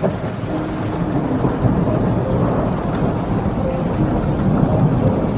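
Thunderstorm: rain falling steadily, with a low rolling rumble of thunder that swells a little and holds underneath it.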